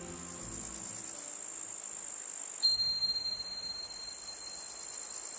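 Soft background music fades out in the first second or so, leaving a steady, high chirring of crickets. About two and a half seconds in, a single bright chime rings out and slowly dies away.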